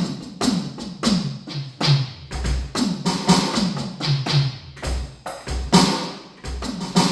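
Electronic drum kit played on an 80s-style preset: a fast run of synthetic drum hits, the toms dropping in pitch on each stroke, with a few deep bass-drum kicks in the middle.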